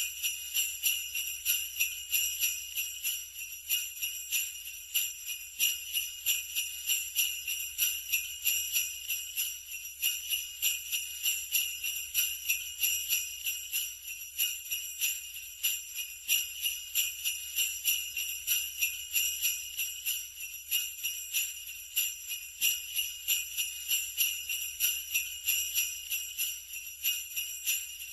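Sleigh bells jingling, shaken in a steady rhythm of several shakes a second, with a bright, high ring.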